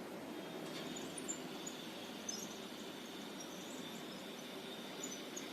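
Small servo-stabilizer DC gear motors running off a 3 V battery: a faint, steady high whine over hiss.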